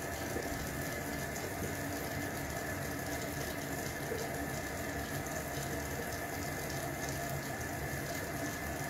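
Water running steadily from a kitchen faucet into the sink.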